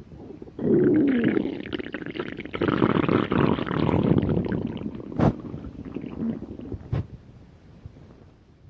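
Hungry stomach growling and gurgling. A loud rumble starts about half a second in with a squeaky tone wavering up and down, then turns into long bubbling gurgles that fade out. Two sharp clicks come partway through.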